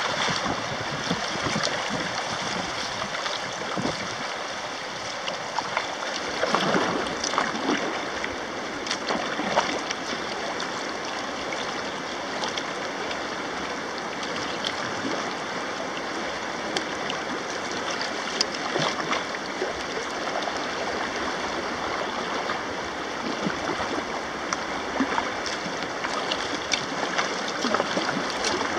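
Fast river water rushing over a shallow riffle around a kayak's bow, a steady rush with brief splashes now and then.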